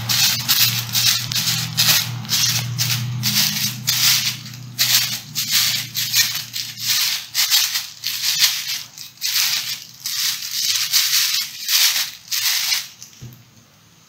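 Thin plastic bag crinkling and rustling in quick, irregular bursts as hands fluff and separate its layers into a flower shape. The crinkling stops about a second before the end.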